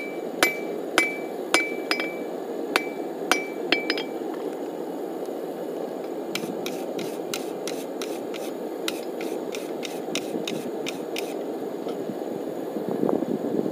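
Hand hammer striking a steel cable billet on an anvil during forge welding. For the first four seconds there are about two blows a second, each with a short metallic ring. After a pause comes a quicker run of lighter, sharper taps lasting about five seconds, all over a steady low rushing noise.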